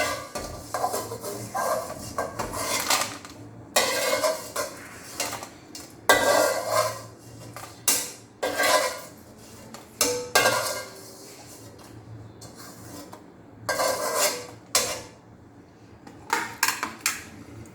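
Metal utensil scraping and clinking against a cooking pan in irregular bursts of clatter, with a quieter stretch about two-thirds of the way through.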